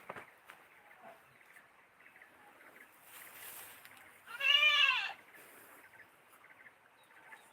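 An animal's single short call about four and a half seconds in, rising and then falling in pitch, over faint background noise, with a sharp click at the very start.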